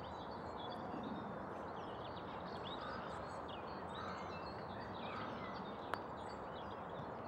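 Outdoor ambience of small birds chirping over a steady background hiss, with a single sharp click about six seconds in.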